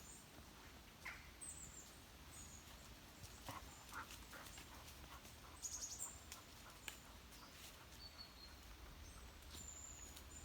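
Small birds calling: short, thin, high whistled notes repeated several times, with soft irregular footsteps on a path.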